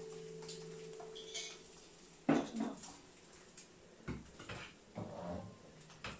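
Metal utensil clinking and scraping in a frying pan as food is stirred, with a sharp knock a little over two seconds in and scattered lighter clicks after it. A low steady hum stops about a second and a half in.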